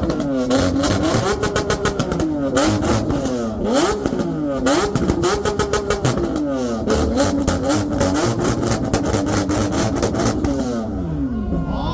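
Lamborghini engine revved hard again and again, the pitch climbing, holding and dropping several times, with rapid exhaust crackles and pops over it; the revs fall away near the end.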